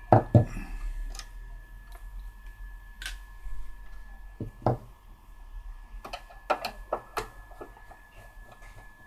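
Scattered clicks and knocks of plastic and metal parts as the opened cassette recorder's chassis and tape mechanism are handled during disassembly, the two loudest knocks right at the start and a quick cluster of clicks about six to seven seconds in.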